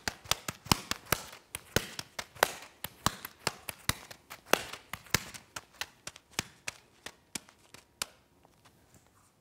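Two juggling balls landing in and leaving the hands: a fast, uneven series of sharp slaps, several a second, that stops about eight seconds in when both balls are caught and held.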